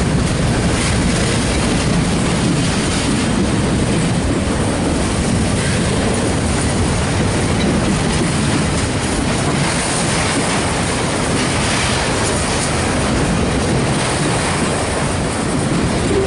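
Autorack freight cars rolling past close by: steel wheels running steadily on the rails.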